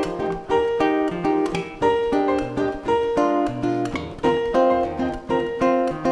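Instrumental break of a live acoustic pop song: acoustic guitar strummed in a steady rhythm, about two chords a second, with keyboard piano chords.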